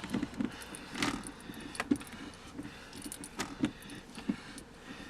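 Irregular clicks, knocks and scraping from a manual Nissan shifter knob being twisted back and forth and pulled upward on its lever, its insert being chewed up on the inside as it works loose.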